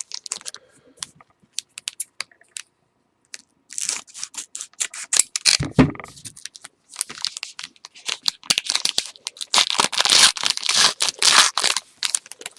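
A 2013 Panini Playbook single-pack wrapper being torn open and crinkled by hand. The crackling comes in two bursts, one about four seconds in and a longer one near the end, with scattered small clicks between them.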